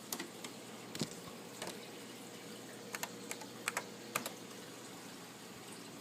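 Keys pressed one at a time on a computer keyboard: about nine irregular clicks over the first four seconds or so, then only a steady faint hum.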